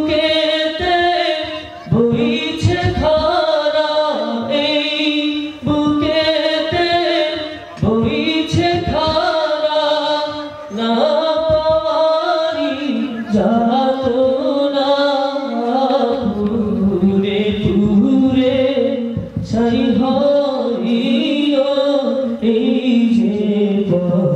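A man singing a Bangla gojol (Islamic devotional song) into a handheld microphone, without instruments: long held, wavering notes in phrases broken by short breaths.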